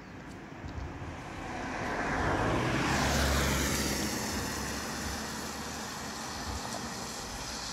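A vehicle passing on a wet road: a swell of tyre hiss and engine noise that builds for about two seconds, peaks about three seconds in, then fades slowly.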